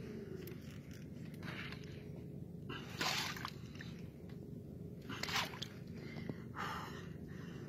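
Water sloshing against a boat's hull in short splashes every second or two, over a low steady hum.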